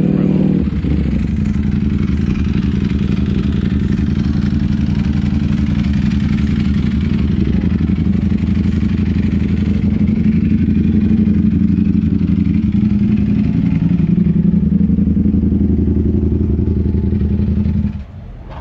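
Motorcycle engine idling loudly close by, with a steady low rumble, then stopping abruptly near the end.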